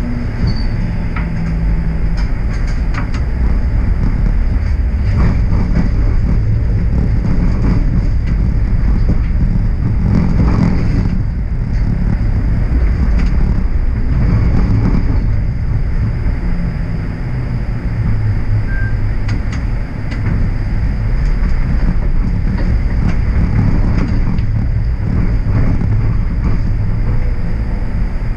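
TTC streetcar running along its rails, heard from inside at the front: a steady low rumble with a faint high whine and scattered clicks and rattles.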